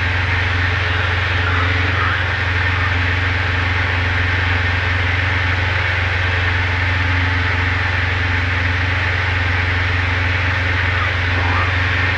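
Steady drone of a Diamond DA20's single piston engine and propeller in flight, heard inside the cockpit.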